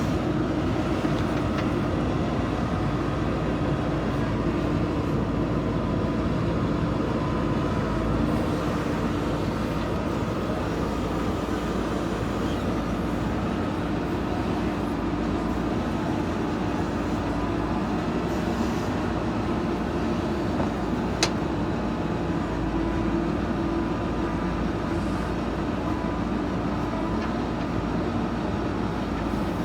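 JCB 3DX backhoe loader's diesel engine running steadily under working load while digging and loading soil into a tipper. A single sharp metallic click or clank cuts in about 21 seconds in.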